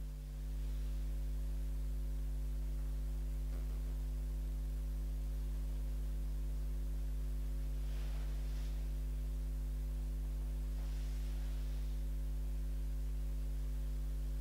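Steady electrical mains hum, with a few faint soft swishes of a make-up brush sweeping powder across the skin.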